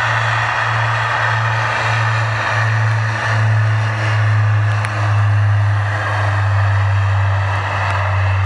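British Aerospace Jetstream 31's twin Garrett TPE331 turboprops at takeoff power during the takeoff roll: a loud, low propeller drone over a broad rushing whine. For the first three seconds the drone pulses as the two propellers beat against each other, then it settles into a steady tone.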